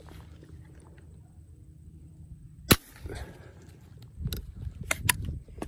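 A single sharp airgun shot about two and a half seconds in, followed near the end by several lighter clicks and knocks.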